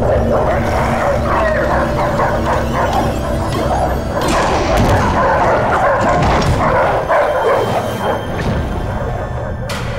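Doberman dogs barking over and over, in a dense rapid run, over a low steady hum.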